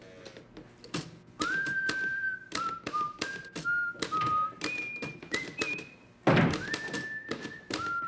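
Manual typewriter keys clacking in uneven strokes while someone whistles a tune in held notes at changing pitches. A heavy thump comes about six seconds in.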